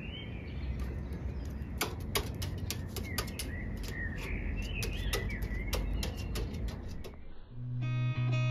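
Outdoor ambience: low wind rumble on the microphone, small birds chirping, and scattered sharp clicks and taps of a hooded crow's beak and claws on a metal roof edge. About seven seconds in, plucked guitar music starts.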